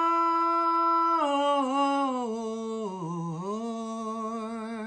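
A man singing unaccompanied, drawing out one long note. It holds level for about a second, slides down, dips lowest around three seconds in, then rises again and holds with a slight vibrato.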